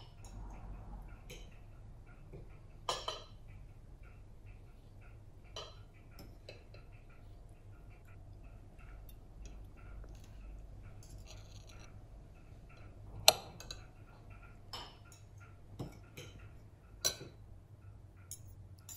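Knife and fork clinking and scraping on a ceramic dinner plate at irregular intervals, the sharpest clink about two-thirds of the way through, over a low steady room hum.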